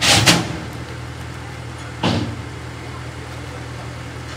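A vehicle engine idling steadily, with two short, loud, noisy bursts over it: one at the start and one about two seconds in.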